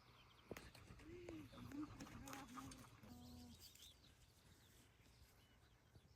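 A dove cooing faintly: a run of about five short, low notes a little after the start, with a few faint knocks around them.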